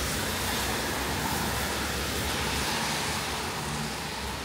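A vehicle on a rain-wet street: a steady hiss of tyres on wet pavement over a low engine rumble, easing off near the end.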